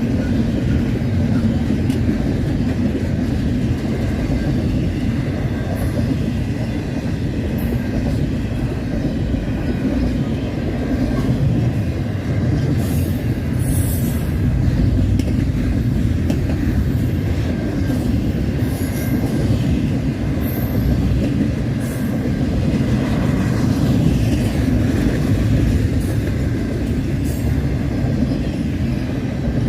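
Double-stack intermodal freight train rolling past, a steady rumble of wheels on rail, with brief high-pitched wheel squeals a couple of times near the middle.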